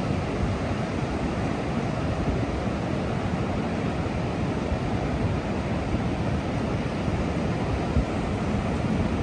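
Ocean surf breaking in a steady, even wash, with a low rumble of wind on the microphone.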